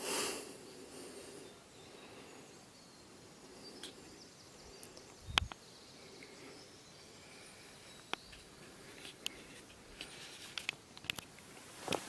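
Faint outdoor ambience with a short gust of wind on the microphone at the start, then scattered sharp clicks and taps of footsteps on rocky, stony ground, closer together near the end.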